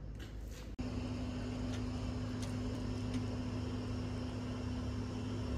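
Steady low mechanical hum over a haze of background noise, starting abruptly about a second in.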